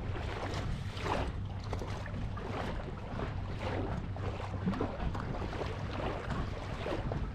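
Lake water splashing and sloshing against the hull of a moving boat, in irregular surges, over a steady low hum.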